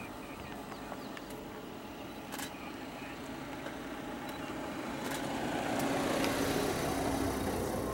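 A motor vehicle driving close by on a dirt track, its engine and tyre noise growing louder through the second half and loudest around six to seven seconds in.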